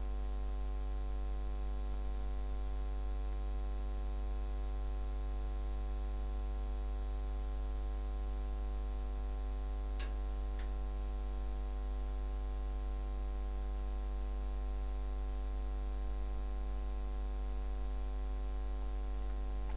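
Steady electrical mains hum with a stack of buzzy overtones, the background of the recording chain. About halfway through there is one sharp click, followed by a fainter one.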